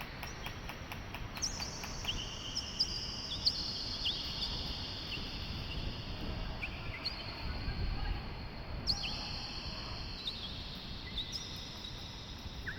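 Wild birds chirping with many short calls and long high thin notes, over the low rumble of wind on the microphone.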